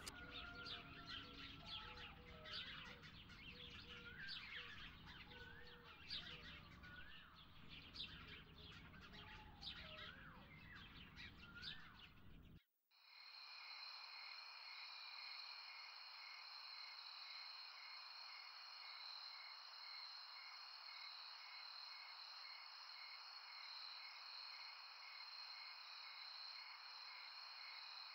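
Faint songbirds chirping in woodland: many short chirps and a few rising whistles. About halfway through they cut off, and a steady high drone follows with a soft pulse a little faster than once a second.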